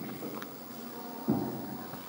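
Wooden paddle boat's paddle knocking against the hull with each stroke: a hollow knock about a second in, followed by a fading echo from the cave, part of a steady rhythm of one knock every second and a half or so.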